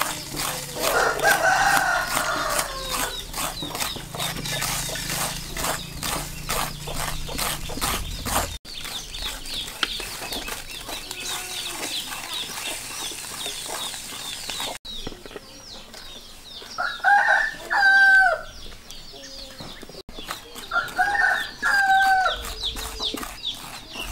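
A rooster crows three times, once about a second in and twice near the end, over a steady high insect chirring. Through the first third, a metal scraper is drawn rapidly and repeatedly across raw pumpkin flesh, shredding it into strands.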